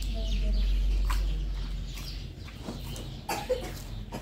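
Chickens clucking in short, scattered calls, over a low rumble that fades after about two seconds.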